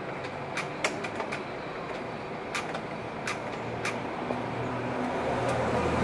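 Several light clicks over a steady background hum, then an engine's low hum that grows steadily louder over the last couple of seconds.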